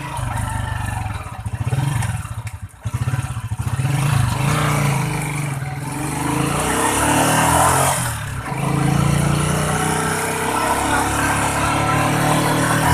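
Motorcycle engine running as it is ridden along a road, speeding up and easing off. The engine drops off sharply about three seconds in, then picks up again.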